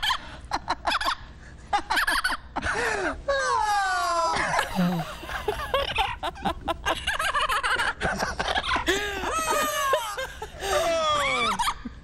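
Yellow-naped Amazon parrot imitating human laughter: a long run of loud cackling calls, most falling in pitch, broken by short gaps.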